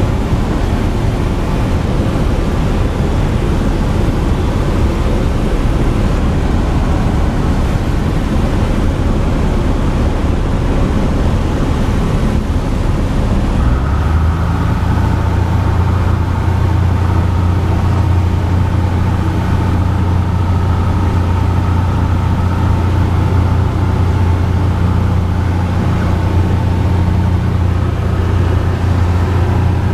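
Piston engine and propeller of a single-engine high-wing light plane, heard from inside the cabin as a loud steady drone. About halfway through, the rough rushing noise gives way to a steadier hum with a clear low pitch.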